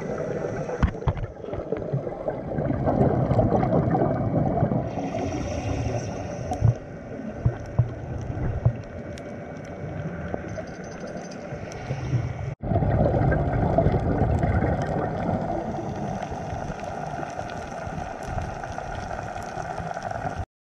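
Muffled underwater sound: a steady low rush of water with gurgling swells and a few sharp clicks. The rush cuts out for an instant about twelve seconds in, then comes back louder.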